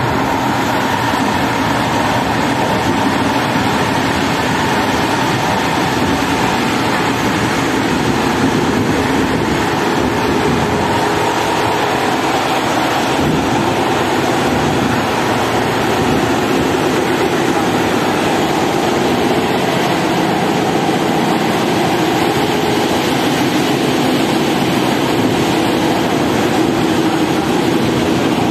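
TLK passenger train in motion, heard from on board: a steady running noise of wheels on the track with no pauses and no clear rhythmic clatter.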